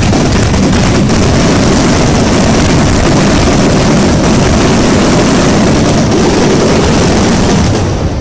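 Fireworks going off in a dense, continuous barrage, the bangs merging into one steady loud rumble that drops away suddenly near the end.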